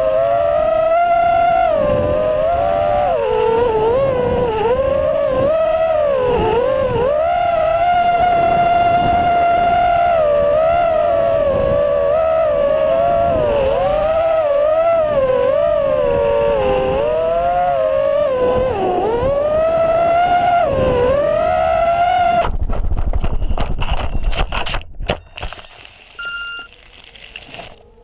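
5-inch, 4S FPV quadcopter's brushless motors and propellers whining, as heard by its onboard camera, the pitch rising and falling with the throttle. About 22 seconds in the props strike the ground and chop into grass with a rapid clatter, then the motors stop and it goes much quieter.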